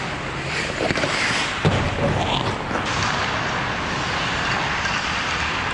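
Ice hockey play on an indoor rink: a steady scraping hiss of skates on the ice, with two sharp knocks of stick and puck about one second and one and a half seconds in.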